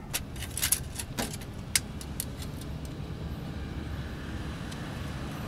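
Steel tape measure being pulled out and handled, giving a quick run of light metallic clicks and rattles over the first two seconds or so, over a steady low rumble of traffic-like background noise.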